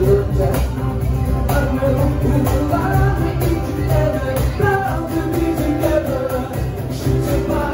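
Live band playing a rock song, with a voice singing over the band.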